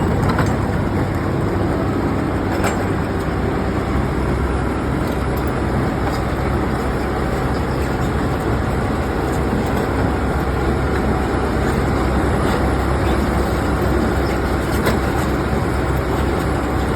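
Wirtgen cold milling machine at work: its diesel engine and cutting drum grinding up asphalt in a steady, heavy rumble, with a few sharp ticks.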